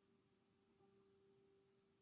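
Faint improvised instrumental music: a single sustained note, sounded again just under a second in and left to ring.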